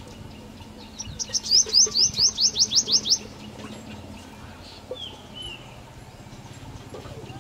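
Purple sunbird singing: a fast run of about a dozen sharp, rising notes lasting about two seconds, followed about two seconds later by two short chirps.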